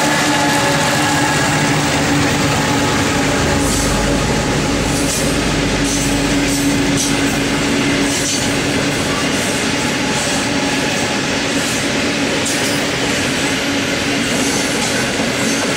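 A loaded coal train climbing a grade. The diesel-electric locomotives work hard as they pass in the first few seconds, then the coal wagons roll by with clicking wheels and repeated short high wheel squeals on the curve.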